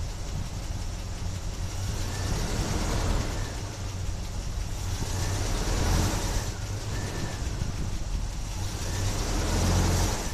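Motor vehicle engine noise: a steady low hum with several faint swells that rise and fall in pitch.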